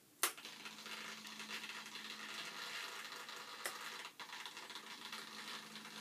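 A small electric motor starts abruptly after a click and runs steadily with a low hum and a whirring hiss, with another click partway through.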